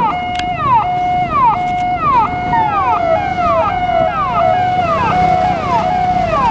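Ambulance's electronic siren sounding in a fast repeating cycle: a quick falling sweep followed by a short steady tone, a little over once a second, with a low vehicle rumble underneath.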